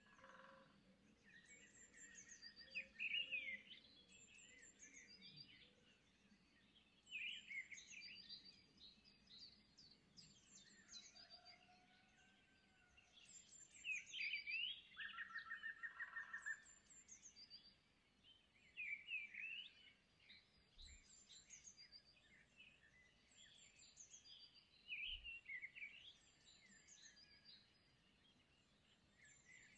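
Faint birdsong: a bird sings short chirping phrases every few seconds, with a brief fast trill twice.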